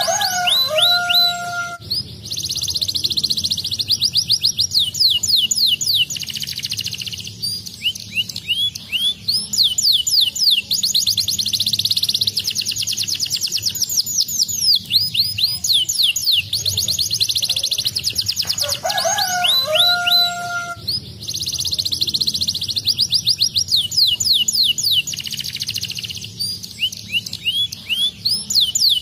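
Domestic canary singing: long rolling trills of rapid, repeated high chirping notes, broken by short pauses. A lower two-note whistle comes in at the start and again about 19 seconds in, where the same song sequence repeats.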